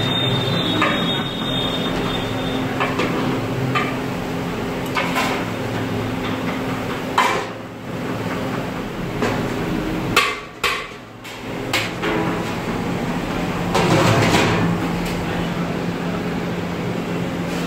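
Irregular knocks and clatter over a steady low hum.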